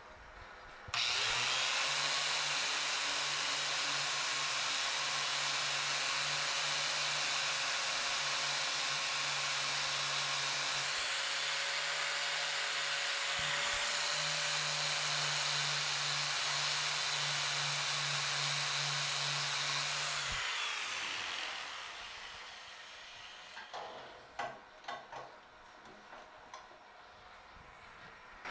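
PM-1127 metal lathe switched on about a second in, running steadily while the freshly turned steel point of a Morse-taper dead center is polished by hand against the spinning work, giving an even hiss over the machine's hum. The lathe stops about two-thirds of the way through and runs down, and a few light clicks follow.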